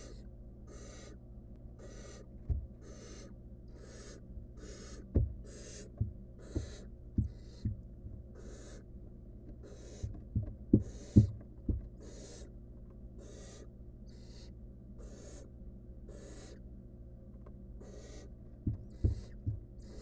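Barn owl nestlings giving rasping, hissing food-begging calls, repeated evenly about three times every two seconds. Short, dull thumps in clusters are the loudest sounds, as the owls shift and handle the rodent on the floor of the wooden nest box, over a steady low hum.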